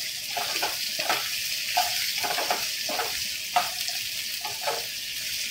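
Chopped vegetables sizzling in hot oil in a nonstick kadai while a wooden spatula stirs them: a steady high hiss with scraping spatula strokes about twice a second.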